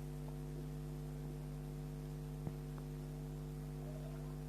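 Steady electrical hum made of several even tones, with one faint click about two and a half seconds in.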